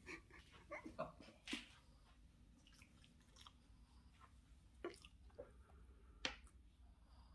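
Near silence: room tone with a few faint, short soft clicks and smacks, the clearest about a second and a half in and near the end.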